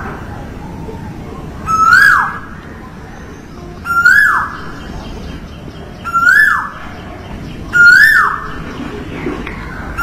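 Male Asian koel calling: four loud calls about two seconds apart, each a brief note that rises and then drops steeply in pitch.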